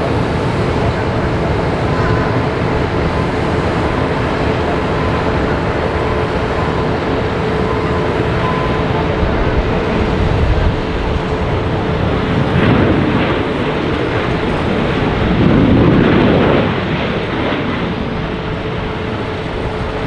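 Jet engines of an American Airlines Boeing 737 landing and rolling out on the runway: a steady roar with a faint whine. The roar swells louder twice in the second half.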